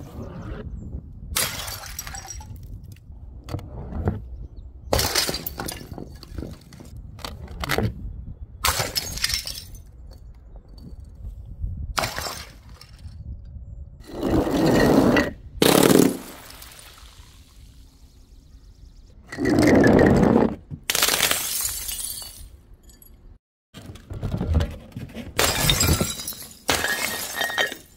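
Glass bottles smashing one after another in a series of a dozen or so crashes, with two longer, heavier crashes in the middle.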